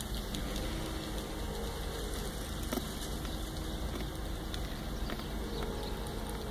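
Semi truck's engine running at a distance, a faint low hum under steady background noise.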